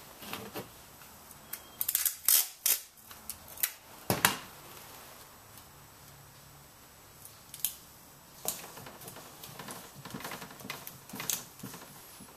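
A laptop LCD panel and its screen lid being handled as the panel is taped back in place: scattered sharp clicks and taps, a cluster of them about two seconds in and the loudest, a knock, about four seconds in.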